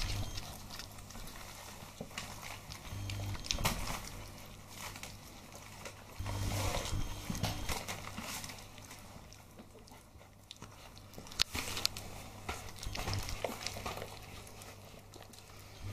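Four-week-old Chesapeake Bay retriever puppies lapping and chewing soft food from a shallow dish, in irregular wet smacks and clicks.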